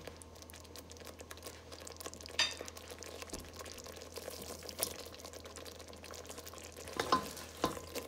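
Curry paste of ground spices and green seasoning sizzling and bubbling in a stainless steel pot, with fine, steady crackling and an occasional pop. Near the end come a couple of sharper knocks as sliced onions are dropped in.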